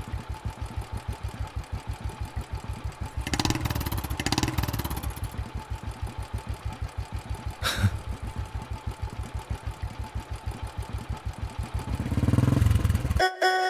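Royal Enfield motorcycle's single-cylinder engine idling with a steady beat, getting louder for a moment about three seconds in and revved up near the end. There is one sharp knock about eight seconds in, and the engine sound cuts off just before the end, when music begins.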